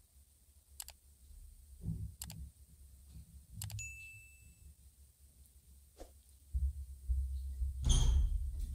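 Mouse clicks and a short bell-like ding from an animated subscribe-button overlay, the ding coming about four seconds in. Low thumps and rumbling follow near the end.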